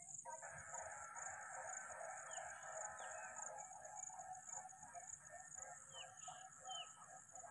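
Faint dawn farmyard sounds: roosters crowing, with small birds giving several short downward chirps, over a steady high-pitched hiss.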